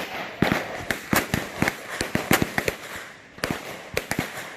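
Firearm shots going off in an irregular string, about a dozen sharp reports, some close together and some overlapping, with a short lull about three seconds in.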